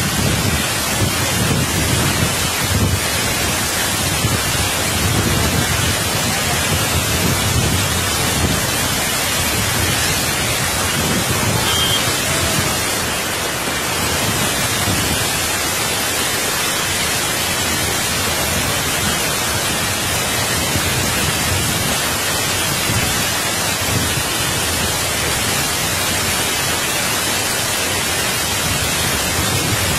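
Fast, muddy floodwater rushing across a road as a turbulent torrent: a steady, loud rush of water.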